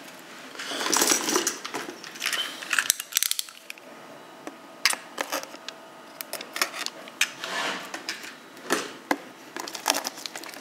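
Clear plastic blister packaging crinkling and clicking as small metal sharpener parts are pried out of it, with light metallic clinks. The clicks come irregularly, in clusters, throughout.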